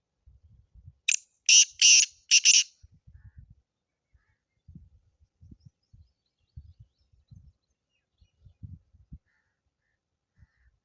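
Black francolin call: four harsh, grating notes in quick succession about a second in. Faint low bumps follow.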